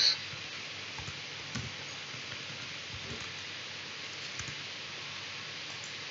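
A few faint, scattered clicks of a computer keyboard and mouse over a steady hiss.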